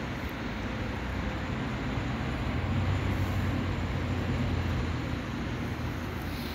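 Steady low rumble of city traffic, swelling a little in the middle as a vehicle passes.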